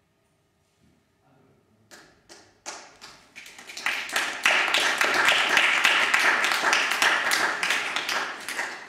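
Audience applauding: a few scattered claps start about two seconds in and quickly build into full applause, which begins to thin out near the end.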